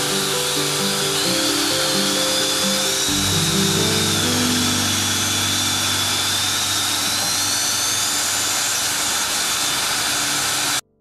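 XpetPee rug-cleaning machine pulling suction through a cushion via a hose and PVC wand: a loud airy rush with a high whistling whine that wavers and drifts upward, cutting off suddenly just before the end. Background music plays under it.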